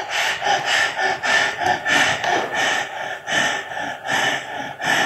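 An actor's rapid, harsh panting, about three to four breaths a second, staged as a man fighting for air during heart palpitations.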